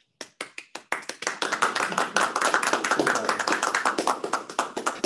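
A small audience applauding: a few scattered claps build within the first second into steady, dense clapping.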